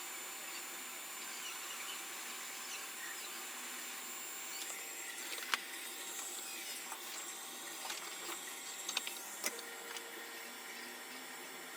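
Faint steady hiss with a few scattered sharp clicks and light taps, the loudest about halfway through and again near the end. No engine is heard running.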